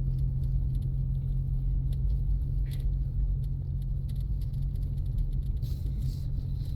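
Cabin noise of a 2024 Ford Mustang EcoBoost with its turbocharged four-cylinder engine, cruising at a steady pace on a snow-covered road: a steady low engine drone over the rumble of the tyres.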